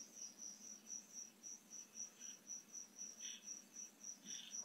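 Faint cricket chirping in a steady, even rhythm of about four pulses a second.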